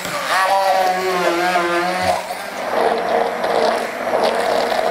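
Hand-held immersion blender running in a tall plastic beaker, puréeing strawberries with sugar and a little cream. Its motor pitch wavers up and down while the blades chop the fruit for the first two seconds. After that the sound turns steadier as the mix becomes liquid.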